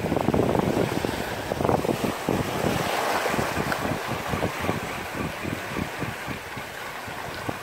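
Wind buffeting the microphone in irregular gusts over the wash of sea waves on a rocky shore.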